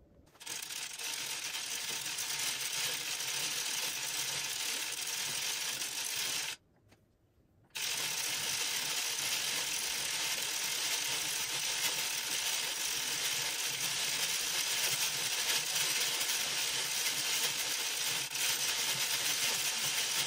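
Dean and Bean circular sock knitting machine being hand-cranked to knit a tube, a really loud, steady mechanical clatter. The cranking stops for about a second some six seconds in, then starts again.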